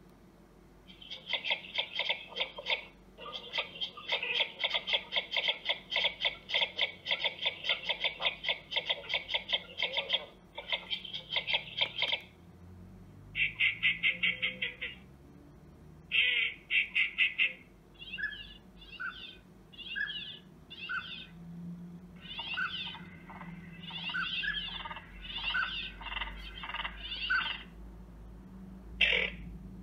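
Recorded bird calls played back through the speaker of a Дичь-1 electronic game caller. For the first ten seconds or so it is a fast, rattling run of clicks, several a second; then come short repeated calls, each with a falling note.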